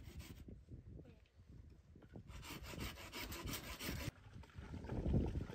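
Rough, repeated scraping and rubbing strokes, busiest between about two and four seconds in.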